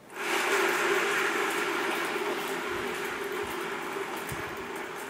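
Lazy Susan turntable set spinning by hand, its bearing giving a rolling rumble with a steady hum that starts suddenly and slowly fades as it coasts down.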